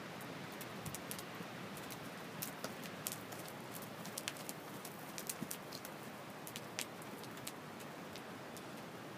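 Faint steady outdoor hiss with many light, irregular clicks and taps, thickest in the middle few seconds.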